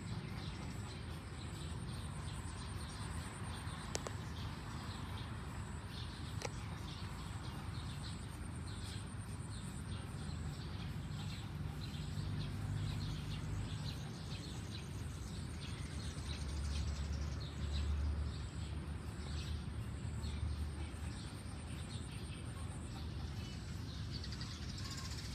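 Outdoor ambience with birds chirping. A low rumble swells up in the second half and fades again.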